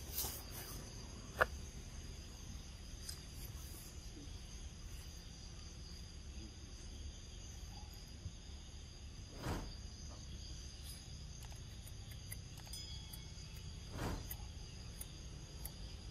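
Steady chorus of insects, several high thin tones held unbroken. A sharp click sounds about a second and a half in, and two short bumps come past the middle and near the end.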